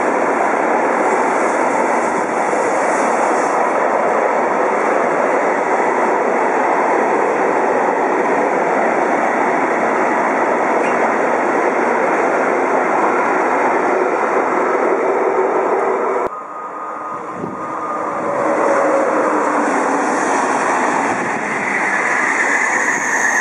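Freight train of covered sliding-wall wagons rolling past, a steady rumble of steel wheels on the rails. About two-thirds through the sound cuts abruptly and a coupled pair of TGV high-speed trainsets approaches and passes, growing louder, with a steady high tone coming in near the end.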